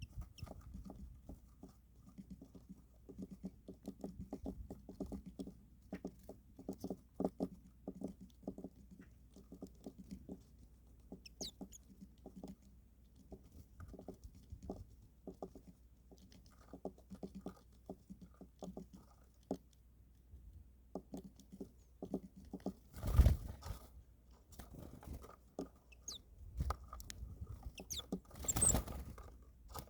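Birds pecking at feed: a rapid, irregular tapping of beaks on a hard surface, with two louder scuffles about two thirds of the way in and near the end.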